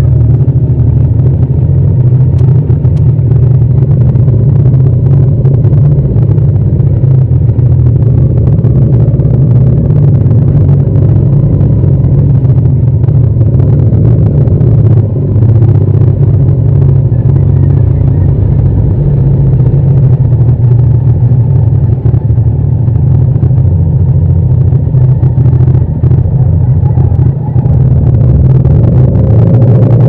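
Yamaha MT-07's 689 cc parallel-twin engine running at low revs, a steady low rumble as the motorcycle rolls slowly, with no hard revving.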